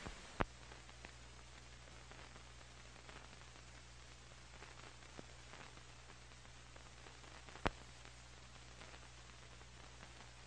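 Faint steady hiss and low hum of an old film sound track. A sharp click comes about half a second in, where the hum grows, and another comes about three-quarters of the way through.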